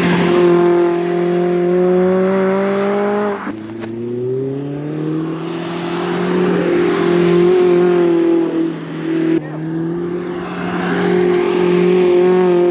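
Recorded sound of a Mazda Miata with an HKS exhaust being driven hard at an autocross: its engine note held fairly steady at high revs, breaking off abruptly twice and climbing again.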